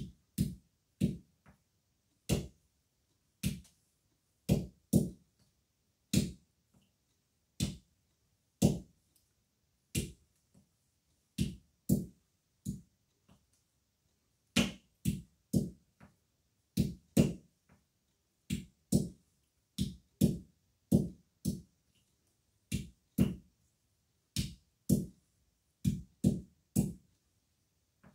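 Green olives being cracked one by one with a hand-held stone: a series of short, dull knocks, irregular, about one a second, some coming in quick pairs.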